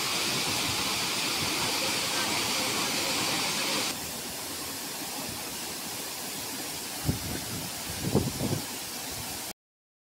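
Steady rushing of a waterfall plunging into its pool, changing to a softer, duller rush about four seconds in. A few low thumps come near the end, then the sound cuts off abruptly.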